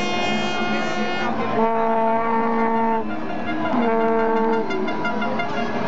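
Vuvuzelas blown by a football crowd: several long horn notes of a second or so each, one after another, over a steady drone of more horns and crowd noise.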